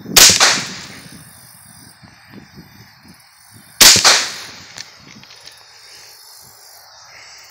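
Two shots from a custom-built Ruger 10/22 semi-automatic .22 LR rifle firing CCI Mini-Mag rounds, one just after the start and one nearly four seconds later, each with a short echo trailing off.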